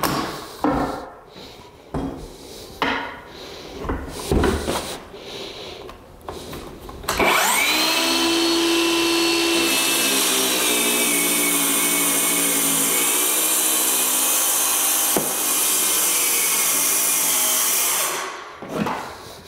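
Knocks and clatter as a DeWalt circular saw is set down and positioned on the plywood subfloor. About seven seconds in, its motor spins up with a rising whine and plunge-cuts steadily through the 3/4-inch plywood for about ten seconds, the pitch dipping slightly midway, then switches off near the end.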